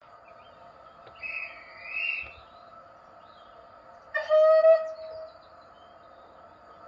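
Model steam locomotive sound decoder playing a Southern Bulleid Pacific (Merchant Navy) soundfile through a small speaker: a steady hum, a shrill rising whistle in two short parts about a second in, then the locomotive's whistle sounding loudly for about a second, about four seconds in.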